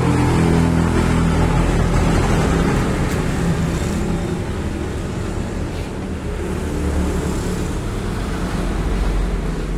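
A motor vehicle running, a steady low rumble with engine tones under it.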